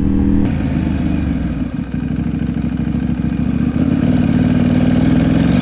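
KTM 790 Duke's parallel-twin engine running under way through an Arrow Pro Race titanium exhaust, heard onboard. The engine note dips briefly about two seconds in, then runs steadily again, with a hiss of wind over it.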